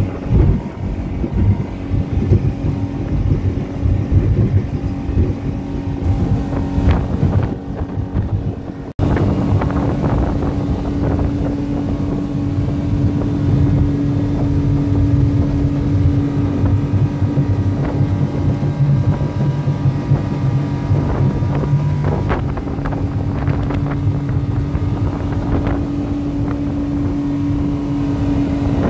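Speedboat's 250-horsepower outboard motor running under way at speed, a steady engine drone mixed with water rushing past the hull and wind on the microphone. The sound drops out briefly about nine seconds in, then carries on steadily.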